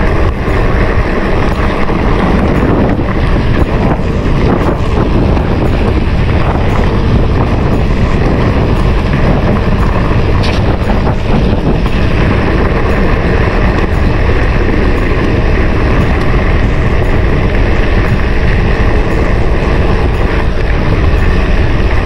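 Mountain bike riding fast down a dirt trail: wind rushing over the camera microphone with a steady loud rumble, and the bike rattling and clicking over bumps.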